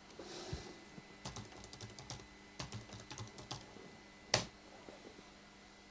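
Computer keyboard typing: a run of soft key taps, then one sharp, louder click about four seconds in.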